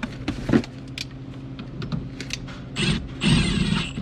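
Light metallic clicks and knocks, then a rough scrape lasting about a second near the end, as an aftermarket steering-wheel hub is worked onto the car's steering column.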